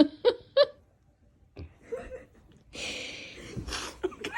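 Quiet, stifled human laughter: a few short voice sounds at the start, then a breathy, hissing laugh lasting over a second near the end.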